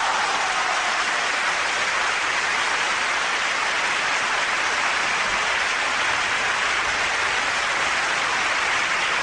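Large concert audience applauding steadily, a dense, unbroken clapping.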